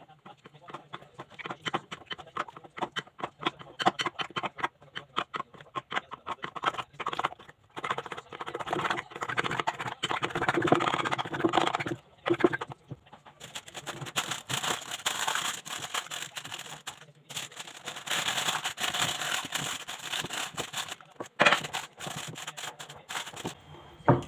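A spoon beating a thick peanut-butter fudge mixture in a glass bowl: rapid, uneven scraping and clicking strokes against the glass, louder in the middle.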